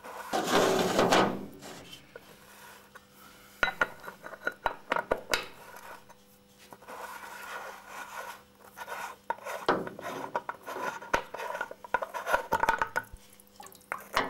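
A spanner and the threaded oil filter cover on a Moto Guzzi Centauro's engine sump, scraping, rubbing and clicking metal on metal as the cover is loosened and unscrewed. A rasping burst comes first, then scattered sharp clicks and bouts of scraping.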